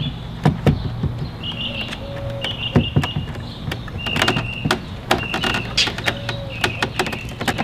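Scattered sharp clicks and knocks of hands handling a car speaker and its mounting in the truck door, over a steady low hum, with short high chirps repeating every second or so.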